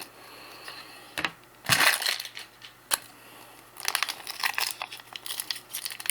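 Crinkling and rustling of a trading-card pack's wrapper being handled and torn open, with a couple of sharp clicks; the rustle grows busier in the second half.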